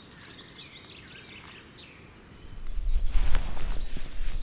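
Small birds chirping and singing. About two and a half seconds in, a loud low rumble on the microphone starts and covers them.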